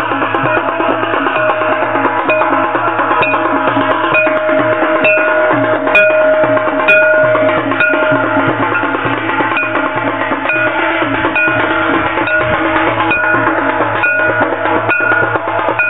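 Festival percussion: drums with ringing metal percussion playing a fast, steady beat.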